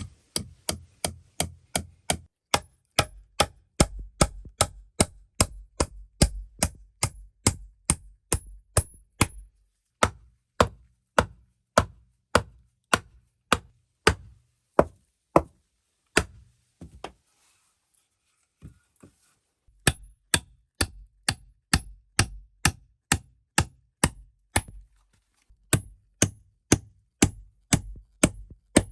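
Long series of sharp hand-tool blows, about two to three a second, each with a brief high metallic ring. They stop for a couple of seconds about two-thirds of the way through, then resume at the same pace.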